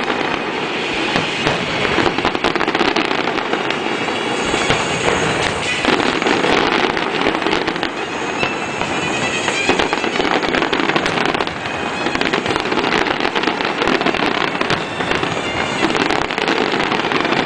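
Fireworks display: shells bursting and crackling in a near-continuous stream of pops, with music playing underneath.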